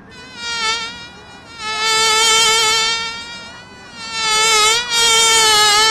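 An animal's long, high-pitched, buzzy call, held on one pitch with a slight waver. It sounds three times: a short one, then two of about two seconds each.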